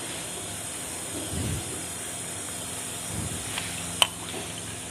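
A Honda GX120 carburetor's float bowl being taken off by hand. There is soft handling of small metal parts over a steady hiss, and a single sharp click about four seconds in.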